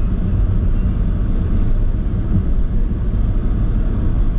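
Steady low rumble of a car driving at road speed, heard from inside the cabin: tyre, road and engine noise, with no distinct events.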